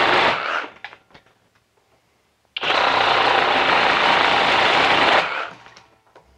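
Flex cordless reciprocating saw cutting through a wooden block in straight-cut mode, with the orbital action off. It stops about half a second in and is silent for about two seconds. It then runs again in a second cutting burst of about two and a half seconds and winds down.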